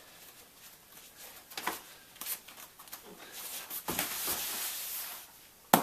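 Scuffling of bare feet and clothing on a training mat during a fast wrist-lock takedown. There is a longer rustle as the thrown man goes down to the mat about four seconds in, then one sharp slap-like impact near the end, the loudest sound.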